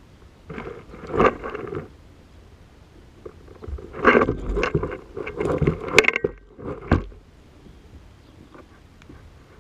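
Knocks and scrapes in a small fishing boat, in two irregular bursts, the second longer and louder.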